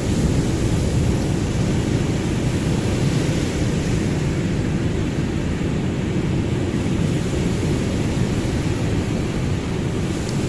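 Ocean waves, heard as a steady low rumble of surf with no single wave crash standing out.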